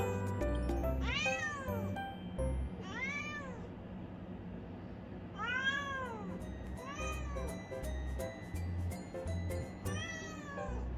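Calico cat meowing five times, each call rising then falling in pitch, as she keeps calling at a figure she has spotted on the balcony.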